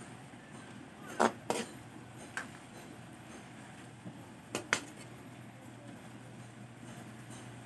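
Metal spatula clanking and scraping against a metal wok while turning pieces of eel in sauce: five sharp knocks, two close together about a second in, one a moment later, and another close pair near the middle, over a low steady hum.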